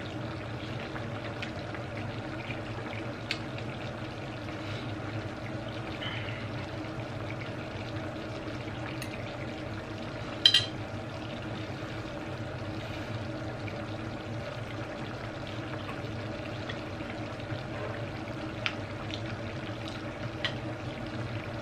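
Steady background hum, with a few light clicks and taps of a fork and crab shell on a plate as crab is eaten. The sharpest click comes about ten seconds in.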